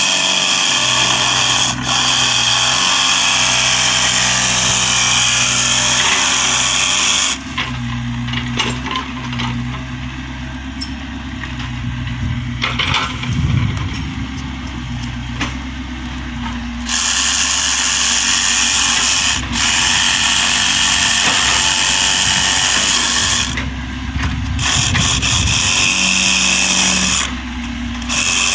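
Cordless power saw cutting through PVC pipe. It runs for about seven seconds, stops for about ten, then runs again for most of the rest with one short break.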